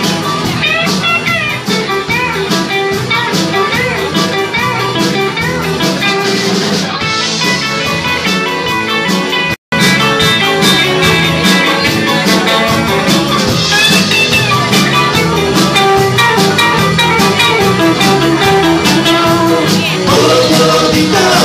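Live band playing: electric guitars, bass guitar and drum kit, with a man singing into a microphone. The sound drops out for an instant a little before the middle.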